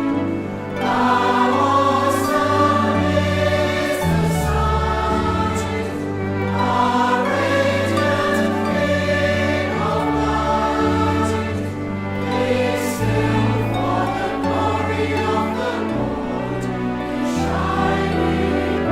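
Choral music: a choir singing over sustained low accompaniment notes that change every second or two.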